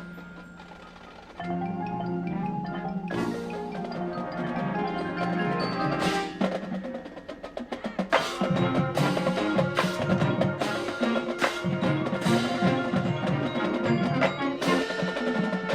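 High school marching band and front ensemble playing: held chords with ringing mallet percussion, then from about eight seconds in a louder, driving rhythm of struck drums and mallets joins in.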